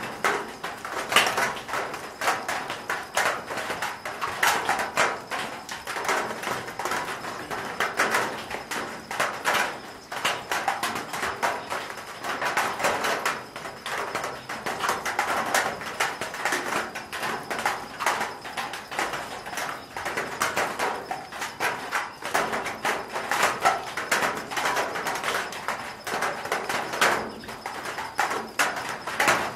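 Raindrops pattering on a corrugated metal roof: a dense, uneven stream of sharp taps and plinks at a steady level.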